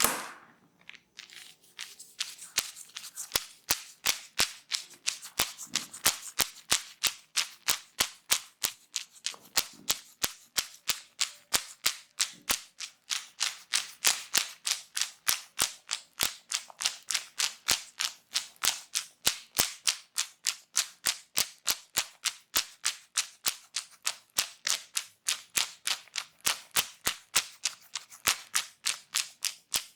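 Percussive tapping massage: hands slapping the head or body in an even, brisk rhythm of about three sharp smacks a second, with one louder smack at the very start.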